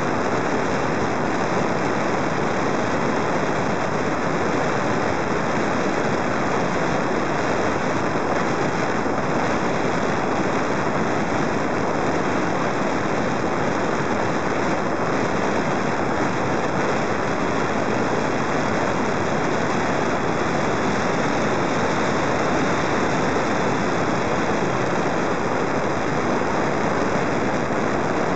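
Steady rushing airflow noise over the microphone of a camera riding on a model airplane in flight, with no distinct motor or propeller tone.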